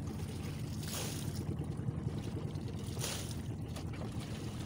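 A small boat engine running steadily, with two brief whooshes about a second and three seconds in.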